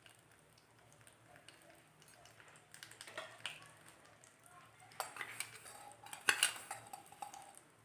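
Metal kitchen utensils clinking and knocking against a small pan and dishes, a few light strikes, the loudest about six seconds in.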